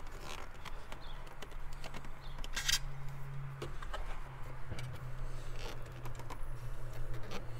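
Rubber PCV hoses being worked by hand onto their fittings in the engine bay: scattered small clicks and rubbing, with one louder click about two and a half seconds in.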